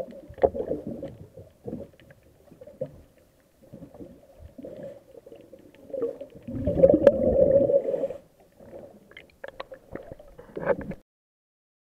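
Underwater sound of a diver's exhaled air bubbling and rumbling past the camera, with one long loud burst of bubbles about seven seconds in. Scattered sharp clicks and knocks are mixed in.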